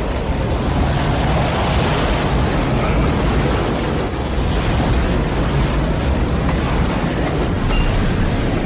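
Strong storm wind, a loud steady rumbling noise buffeting the microphone.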